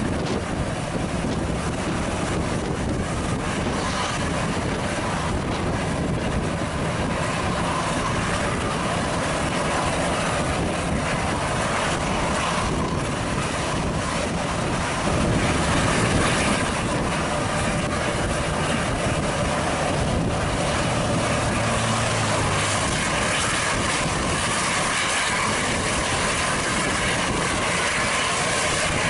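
Moving vehicles on a road: steady engine and road noise, with a low engine hum that grows a little louder about fifteen seconds in.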